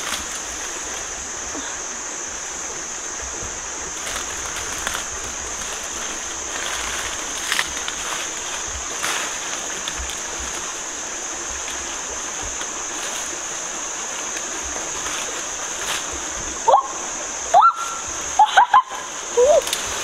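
Rustling and crackling of someone moving through dry leaf litter and brush, over a steady high-pitched drone. Near the end come a few short, loud sounds that rise in pitch.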